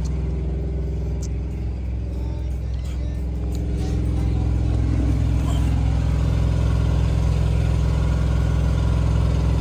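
An engine idling steadily: an even, low drone that grows slightly louder about four seconds in, with a few faint clicks over it.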